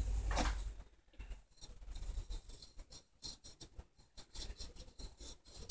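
A plastic pill bottle and its cap being handled, giving small clicks and a few faint high squeaks about two and five seconds in: the squeak of a dry cap rubbing on the bottle.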